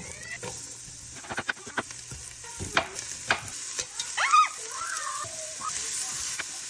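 Chopped onion sizzling in hot oil in a Dutch oven, the hiss growing steadily louder, with several light clicks in the first three seconds as pieces drop in. About four seconds in there is a short gurgle as oil pours from a glass bottle, and a spatula stirs near the end.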